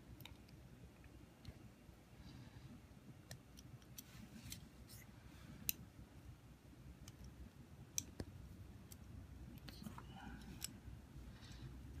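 Faint, scattered small clicks and taps as a thin wire is threaded by hand through holes in a CNC machine's connector plate. Two sharper clicks come about halfway and about two-thirds in.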